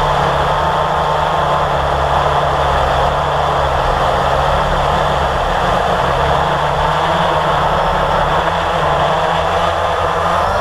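Blade 350 QX quadcopter's brushless motors and propellers running steadily in flight: a continuous buzzing whine whose pitch drifts slightly up and down as the motor speeds change.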